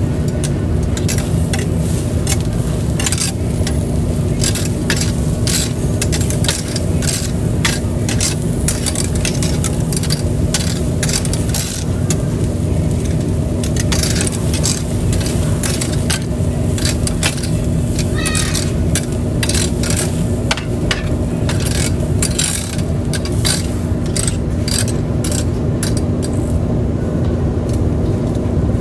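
Tripe sizzling on a grill grate over open flame, with frequent sharp crackles and pops at irregular intervals over a steady low rumble and hum from the grill.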